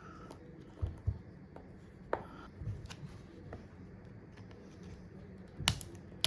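Scattered small clicks and light scraping as an iPhone XR's screen is worked loose from its frame, with a sharper click near the end.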